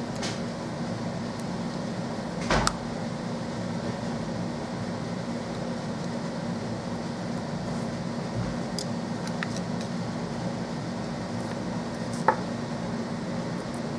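Steady low hum of background room noise, with two short clicks, one about two and a half seconds in and one near the end.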